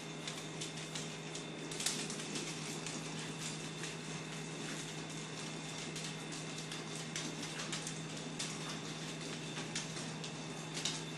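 A small battery-powered toy ball with a furry tail whirring steadily as it rolls and jerks across a vinyl floor. Many light clicks and knocks are scattered through it, from the toy bumping about and a small dog's claws on the floor.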